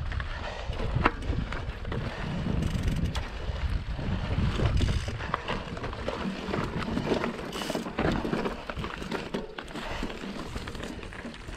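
Trek Top Fuel mountain bike climbing a rocky trail: tyres crunching and knocking over rocks, with frequent clicks and rattles from the bike. Wind rumbles on the camera's microphone throughout.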